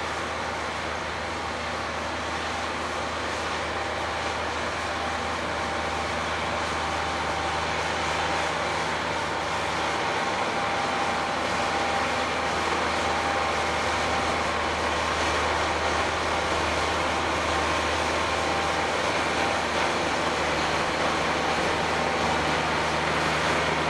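Kubota MG73 tractor's diesel engine running steadily under load as it works a dry grass field with a rear implement, getting gradually louder as it draws near.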